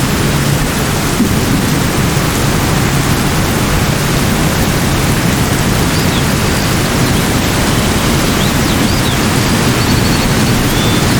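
Steady, even rushing noise of a natural ambience, heaviest in the low range. A few faint, short, high chirps of birds come in about six seconds in.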